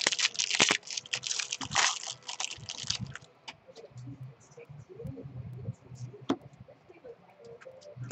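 Foil wrapper of a baseball card pack crinkling and tearing as it is ripped open. Then come quieter clicks and ticks as the stack of cards is handled and sorted.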